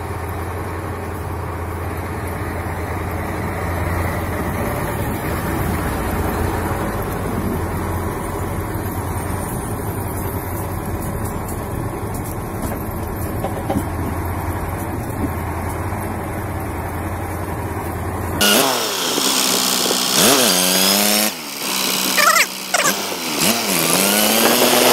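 Diesel engine of a Mercedes-Benz logging truck running steadily as it drives slowly on a snowy road, with a deep low hum. About 18 seconds in it cuts off abruptly, and a louder sound with pitch sliding up and down takes over.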